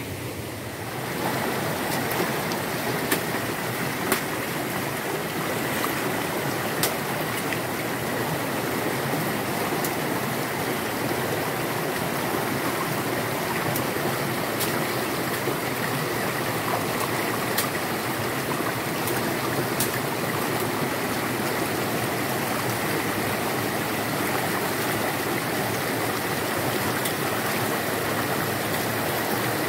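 Shallow rocky forest stream rushing steadily over a small cascade. Now and then there is a faint sharp knock or splash as someone wades upstream through the water over the stones.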